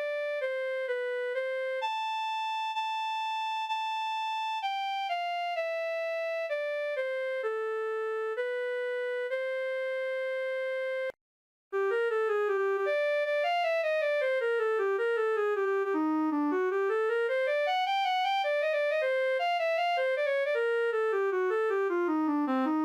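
Two built-in ringtones of a Bitsmo VF30 phone, synthesized melodies from its MediaTek MT65xx sound set played on the handset. A slow tune of held single notes stops about eleven seconds in, and after a brief silence a second ringtone starts: quick notes running up and down in rapid runs.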